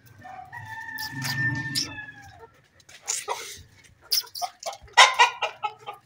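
A rooster crows once, about two seconds long, then chickens give several loud, harsh squawks, the loudest about five seconds in.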